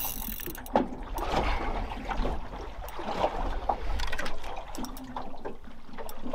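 Water lapping and slapping against the hull of a small aluminium dinghy, with scattered clicks and knocks and a sharp knock just under a second in.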